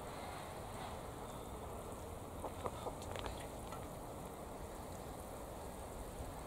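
Water pouring from a watering can onto soil and young plants, a steady patter. A few short, sharper sounds come through about two and a half to three and a half seconds in.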